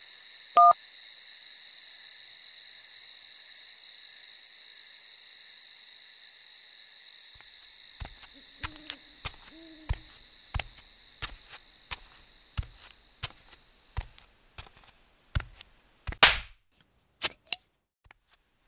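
Crickets chirping in a steady night chorus that fades away over the second half. A short electronic phone beep sounds about half a second in. From about eight seconds on, scattered sharp clicks and knocks set in, with one louder sweeping stroke near the end.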